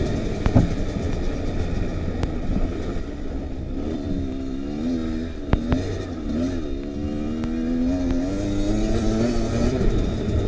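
Kawasaki KX85 two-stroke dirt bike engine under way, its pitch rising and falling over and over as the throttle is worked on the trail. Two brief sharp knocks come through, one about half a second in and one near the middle.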